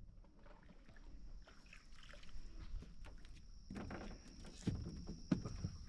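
Scattered knocks, clicks and handling noises in a small aluminium boat, the sharpest few near the end, over a low rumble and a steady high-pitched tone.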